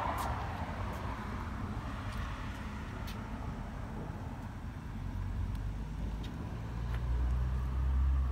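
Low engine rumble of a road vehicle going by, swelling to its loudest near the end, with a few faint clicks.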